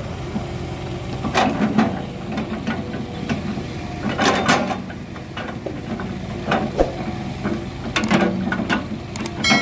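Hitachi tracked excavator's diesel engine running steadily while its log grapple sets rubberwood logs onto a truck bed, with three clusters of wooden knocks and thuds: about a second and a half in, midway, and near the end.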